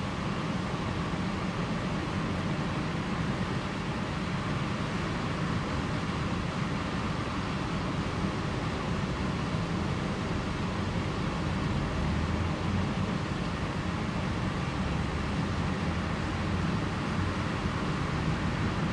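Steady outdoor background noise with a low rumble, even throughout, with no distinct events.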